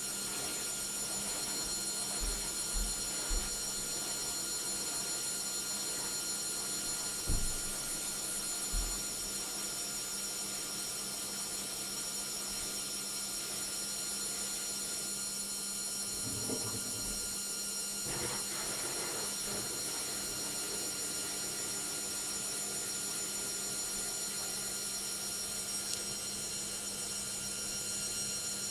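Logik washing machine running: a steady motor whine with several high tones and a low hum, and a few short low thumps in the first nine seconds.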